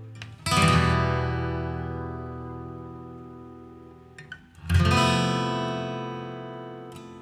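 Music: two strummed guitar chords about four seconds apart, each left to ring and slowly fade, with a few quiet plucked notes just before the second.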